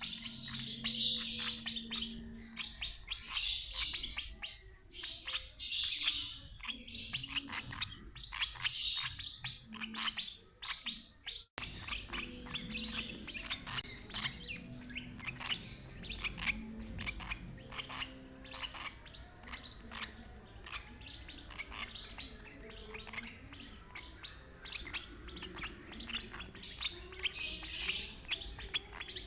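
Young lovebirds chirping in a dense, rapid stream of high calls: the begging calls of chicks being fed by regurgitation. The calls break off for an instant about a third of the way through, then carry on.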